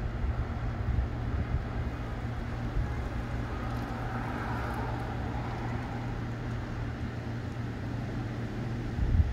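Strong gusty wind buffeting the microphone as a low rumble, easing through the middle and gusting again near the end, with a broad rushing swell that rises and fades about four seconds in.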